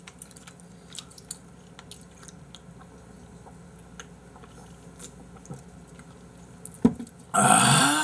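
Mukbang eating sounds: soft chewing and light clicks of chopsticks against bowls. About seven seconds in comes a sharp knock, then a loud, breathy vocal exclamation that falls in pitch.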